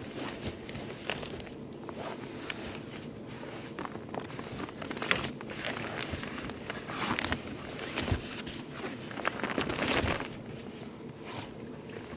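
Irregular rustling, scraping and soft knocks of a camping mattress being handled and pushed into place.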